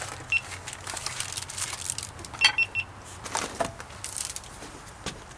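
Cardboard box and plastic wrapper crackling and rustling as a box of refrigerated pie crust is opened and the rolled crust pulled out, with sharp clicks among the rustles. A few short high peeps sound, one near the start and a quick run of them about halfway through.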